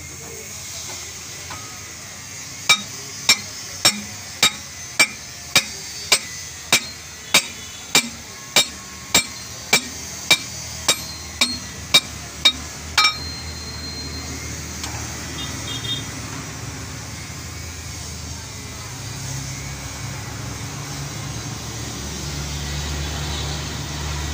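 A run of nearly twenty ringing hammer blows on a steel liner driver, about one every 0.6 s, driving a new cylinder liner into a four-cylinder diesel engine block; they stop about halfway through. Later a low steady engine hum builds.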